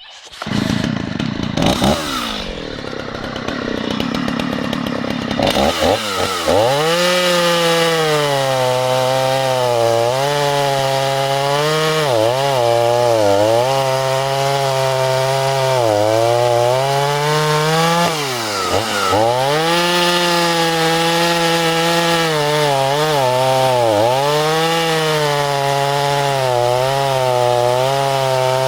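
Stihl MS 290 two-stroke chainsaw running at high revs while cutting wood, its engine note sagging and recovering over and over as the chain bites into the cut. The engine is freshly rebuilt with a new piston and rings and is still tight.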